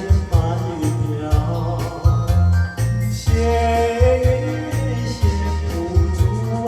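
A singer's voice carrying a Mandarin pop melody over a karaoke-style backing track with a steady, regular bass beat.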